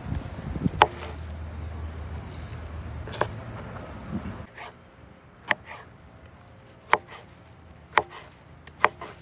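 Chef's knife slicing tomatoes on a plastic cutting board: separate sharp taps about once a second as the blade meets the board. They follow a steady low rumble with a couple of taps, which stops abruptly about halfway.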